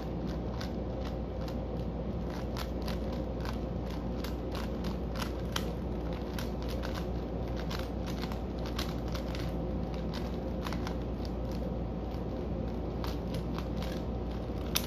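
Rubik's Cube of an older model being turned fast by hand in a speed-solve: quick, irregular plastic clicks and clacks of the layers twisting, with one louder clack near the end. A steady low hum runs underneath.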